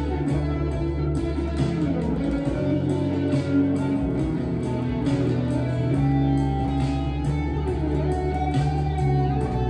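Electric guitar playing a melodic line over accompaniment with a steady beat.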